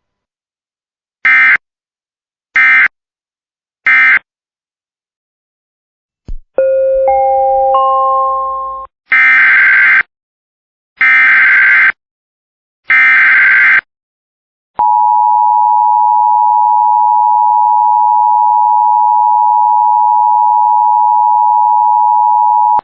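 Emergency Alert System tones: three short screechy SAME data bursts marking the end of one message, a short rising chime of electronic tones, then three longer SAME header data bursts. From about fifteen seconds in comes the steady two-tone EAS attention signal.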